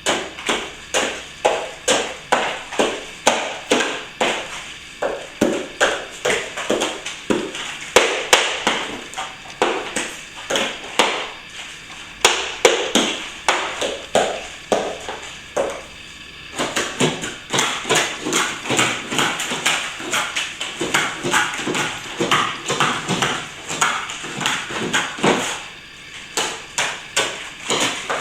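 A hand tool working at cracked plaster in quick, repeated short strikes, about two a second, steady throughout, with a brief dip about sixteen seconds in.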